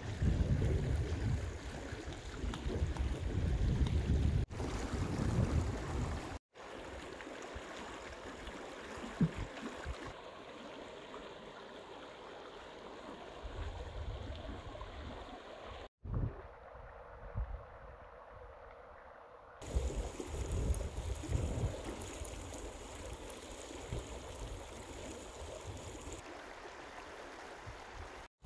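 Shallow mountain stream rushing over stones, a steady noise of running water. Wind buffets the microphone with a low rumble in the first few seconds.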